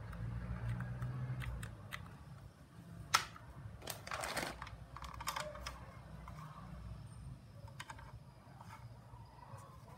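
Hands rummaging in a plastic tool case: scattered clicks and taps of hard plastic parts, one sharp click about three seconds in, then a short rustle of plastic bag wrapping about four seconds in, with fainter rustles later.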